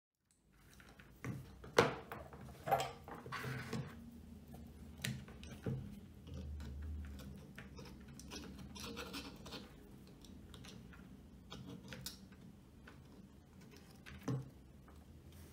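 Small clicks, taps and rubbing of hand tools and a circuit board: pliers and a soldering iron working on a speaker crossover board in a metal helping-hands clamp while the old fuse is taken out. A few sharper knocks come in the first few seconds.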